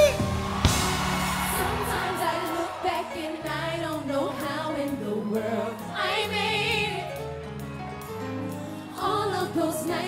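Live gospel music: a band holds slow, sustained chords while a vocal group sings over them, one voice wavering in a strong vibrato about six seconds in.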